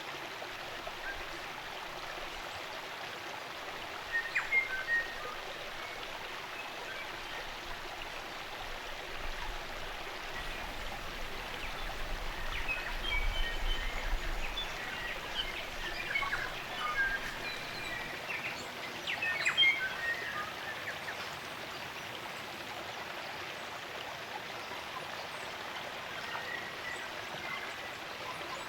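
Stream water running steadily, with songbirds calling in short chirps and whistles: a brief flurry about four seconds in and a busier stretch of calls through the middle.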